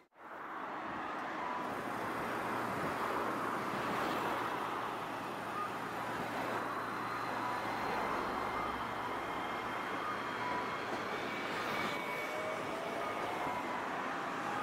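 Tosaden 3000-series low-floor tram running at a street tram stop, over steady city road traffic. Near the end a whine rises in pitch.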